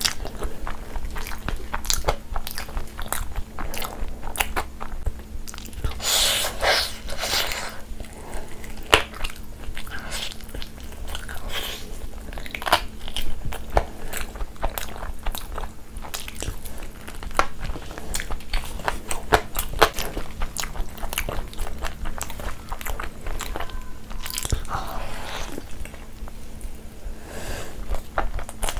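Close-miked eating: a person biting and chewing food, with many short crunches and clicks, the loudest crunching about six seconds in.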